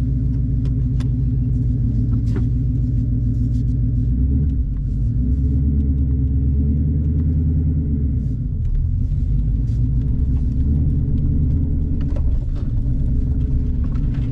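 Boss 302 Mustang's 5.0 L V8 running through replacement side pipes with a low, deep rumble; the engine note changes a few times, about four, eight and twelve seconds in.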